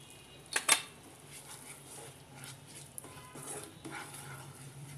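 Wooden spatula stirring and scraping thick onion-paste masala in a non-stick frying pan, with one sharp clack of the spatula on the pan about half a second in.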